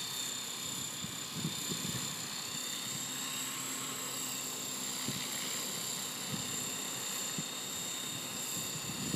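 Small drone flying, its motors and propellers making a steady high whine.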